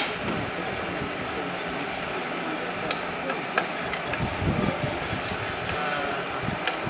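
Water-balanced cliff railway car running along its rails: a steady rolling hiss with a few sharp clicks midway.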